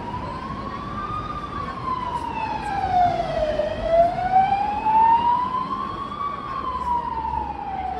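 Emergency-vehicle siren wailing, its pitch sliding slowly up and down about once every five seconds and loudest near the middle, over street traffic noise.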